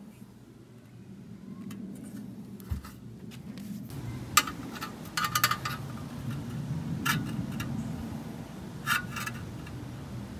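Steel accelerator pedal bracket clinking and scraping against a painted steel panel as it is set in place by hand: a handful of short, sharp metallic clicks, a quick cluster of them about halfway through, over a low steady hum.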